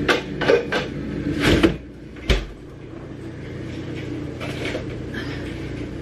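Refrigerator-freezer doors being handled: a few clatters as a cup goes into the freezer, then a thump as the freezer door shuts about two seconds in. Quieter rustling follows as the fridge door below is opened and a plastic food container is taken out.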